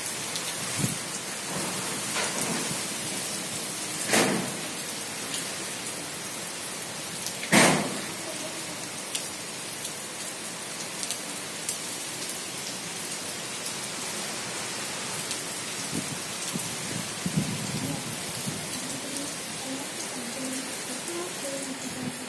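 Heavy cyclone rain and wind: a steady even hiss of rain, with two short loud bursts about four and seven and a half seconds in.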